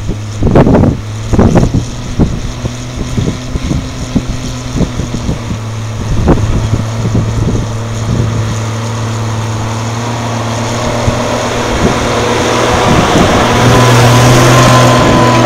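Land Rover Series IIA 109 Forward Control truck's engine running steadily as it drives up, getting louder near the end as it passes close by. Gusts of wind buffet the microphone in the first couple of seconds.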